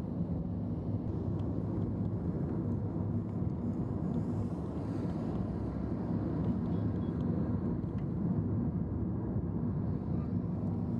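Steady low rumble of a moving vehicle's engine and road noise, even throughout with no sudden events.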